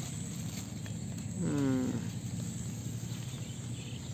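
A single short animal call, falling in pitch, about halfway through, over steady background noise.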